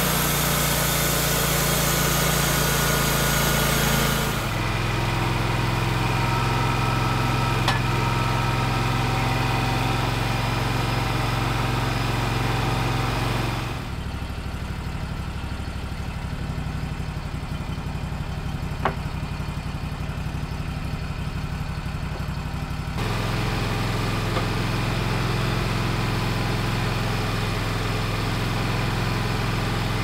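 Gas engine of a homemade bandsaw sawmill running steadily at idle, with its level and tone shifting abruptly a few times.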